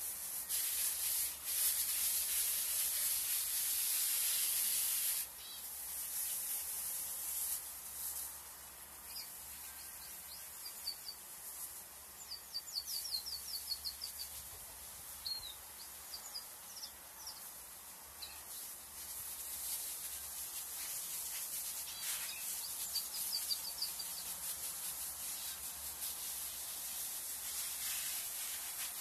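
Small cage birds chirping: runs of quick, short, high chirps, each sweeping downward, in the middle and again later on. A loud steady hiss fills the first five seconds and cuts off suddenly.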